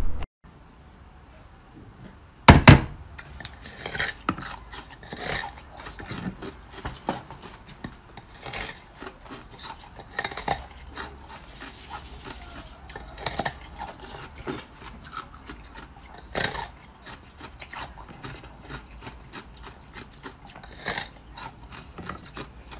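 Irregular taps, clicks and scrapes of hard frozen ice being handled, including a purple ice cup and ice sticks in test tubes, with one loud knock about two and a half seconds in.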